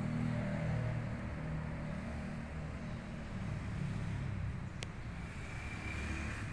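Steady low rumble with a single sharp click about five seconds in.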